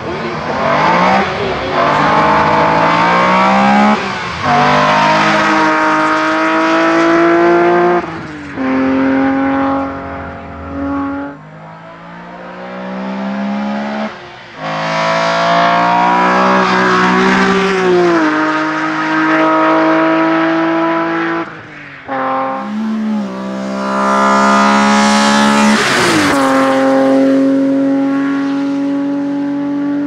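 Hillclimb-prepared BMW E30 race car with a 3-litre engine at full throttle, revving up hard and changing up through the gears, each shift a sudden drop in pitch before it climbs again, over several passes.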